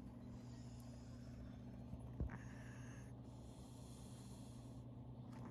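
A sleeping Chihuahua snoring softly: two long, faint breaths with a hiss to them. A single short knock about two seconds in.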